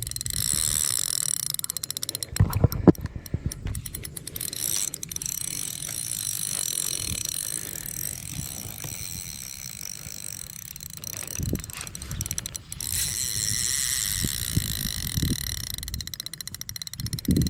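Spinning reel on an ultralight rod clicking and whirring: the drag ratchets as a large hooked carp pulls line, between turns of the reel handle. The clicking comes in quick runs, densest a few seconds in.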